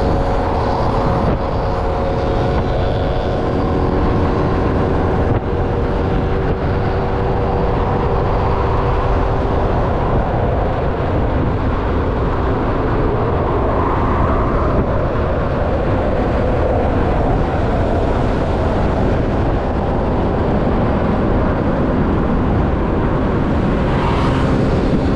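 Wind buffeting the microphone of a moving scooter, over the scooter's engine and road noise. A steady hum is heard for the first ten seconds or so and then fades.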